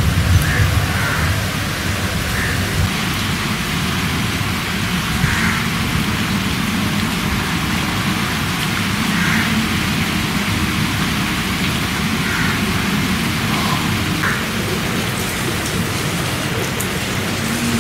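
Steady rain falling, a continuous patter of drops on water and leaves.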